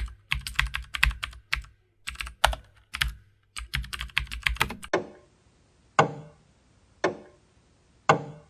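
Typing on a computer keyboard: quick clicks in irregular bunches for about five seconds. Then four single sharp clicks about a second apart, each with a short ringing tail.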